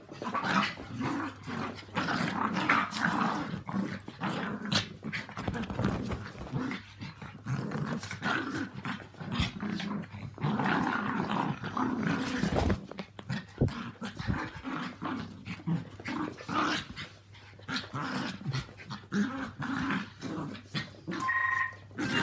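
Small dogs, Yorkshire terriers and a Maltese, growling at each other as they play-fight, with scuffling knocks throughout. Near the end a short electronic beeping starts.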